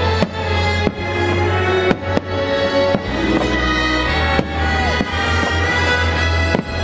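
Fireworks shells bursting in the sky, several sharp bangs at irregular intervals, over loud show music with sustained notes.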